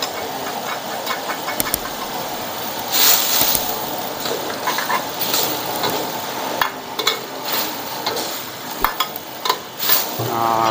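Steel ladle stirring and scraping a wok of gravy over a high gas flame, with repeated clinks against the wok and a steady hiss from the simmering liquid and burner underneath. Cornstarch slurry and water are being stirred in to thicken the gravy. A louder scraping stretch comes about three seconds in.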